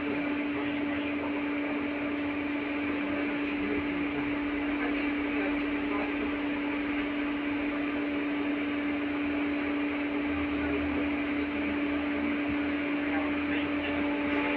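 Cabin noise of an LVS-86 tram car running along the track: a steady rumble of running noise with a constant low hum through it.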